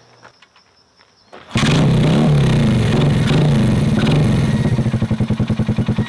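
1982 Honda XL100S's single-cylinder four-stroke engine starts suddenly about a second and a half in, catching at once, and runs steadily. Near the end it settles into an even, pulsing idle. The start shows that the newly wired generic ignition switch works.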